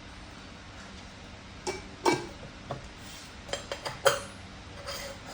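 Hard objects being handled and set down, a series of short knocks and light clinks over about two seconds, the loudest two near the middle and just past it.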